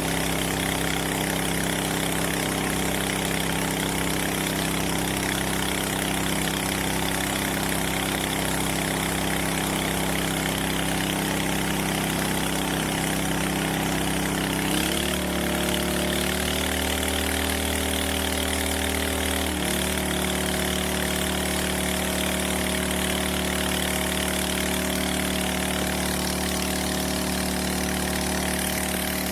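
Small engine-driven 2-inch water pump running steadily under load, with a steady hiss of water over its engine note as the fire nozzle is tested. About halfway through the engine's pitch steps up in two stages and then stays higher.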